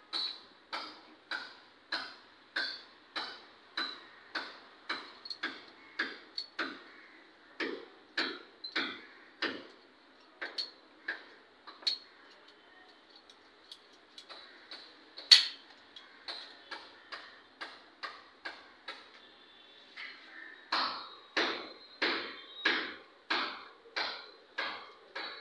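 A steady ticking beat, about two ticks a second, carried by the background music track. It fades for a stretch in the middle and comes back strongly near the end, with one sharp, louder click about fifteen seconds in.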